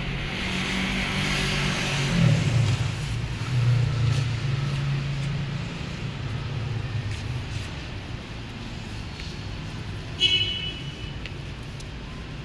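City street traffic: a vehicle engine rumbles loudest in the first few seconds as it passes, then fades into a steady traffic hum. About ten seconds in there is one short, sharp, high-pitched sound.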